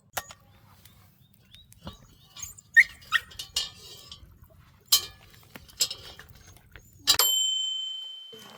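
Scattered light clicks and knocks. Near the end comes a sharp metallic strike that rings on as one clear tone, fading over about a second and a half.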